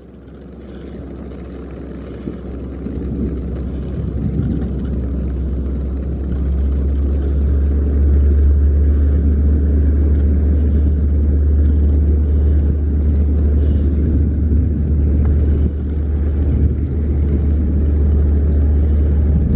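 Long Island Rail Road electric train running, a deep steady rumble that builds over the first eight seconds or so and then holds.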